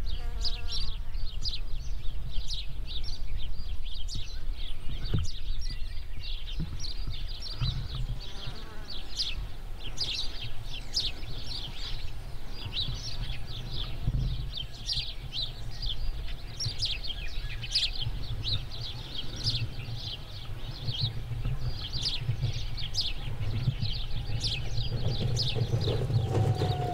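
Dense chorus of short, high chirps, with a steady low rumble beneath; near the end a whine slides down in pitch.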